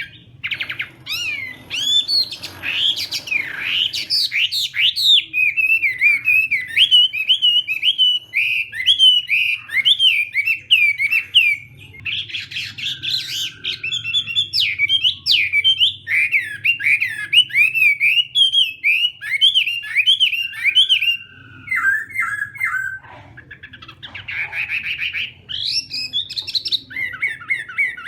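Chinese hwamei singing a long, varied song of rapid repeated whistled notes that sweep up and down, broken by short pauses about twelve and twenty-three seconds in, over a faint steady low hum.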